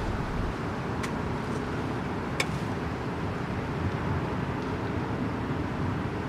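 Wood campfire burning: a few sharp pops and cracks over a steady low rumble.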